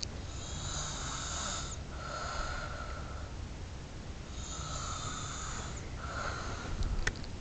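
A person snoring in sleep: slow, regular snoring breaths, about two full breath cycles of roughly four seconds each, each breath a drawn-out hissing rasp. A couple of faint clicks come near the end.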